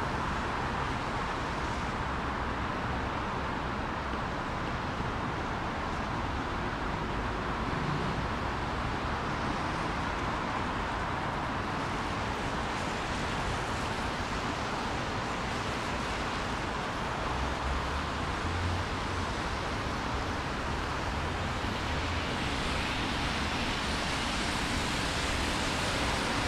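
Steady city street noise: a constant hiss with traffic rumbling underneath, a vehicle passing a little past the middle.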